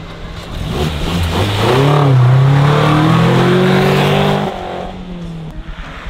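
2022 Suzuki Jimny's 1.5-litre 16-valve four-cylinder engine revving as the car accelerates away, its pitch climbing for about three seconds, then dropping suddenly about four and a half seconds in as the revs fall away.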